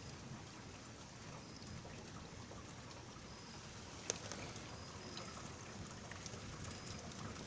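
Steady rain falling during a thunderstorm, an even hiss with one sharp click about four seconds in.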